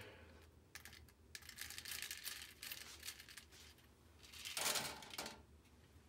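Small plastic Cherry MX switch parts rattling and clicking against a plastic mesh basket as they are stirred and shaken by hand, with a louder rattle about four and a half seconds in.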